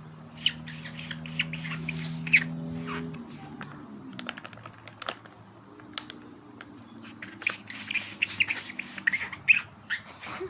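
Birds chirping in many short, sharp calls, thickest near the start and again in the last few seconds. A low steady hum runs under the first three seconds, then fades.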